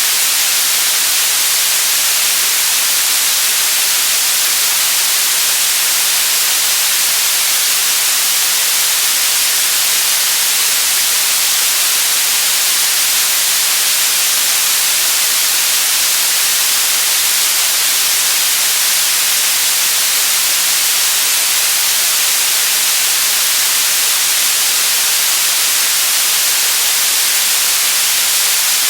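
Steady, unbroken static hiss, bright and strongest in the high treble, at a constant loud level.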